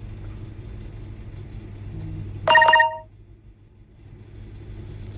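A steady low rumble. About two and a half seconds in, a loud half-second tone sounds, made of several pitches at once, after which the rumble briefly dies down.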